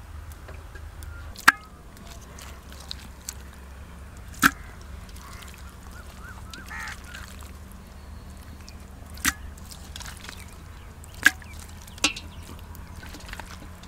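Several sharp, separate knocks as a large clay handi is set on the stove and raw chicken pieces are dropped into it, a few seconds apart.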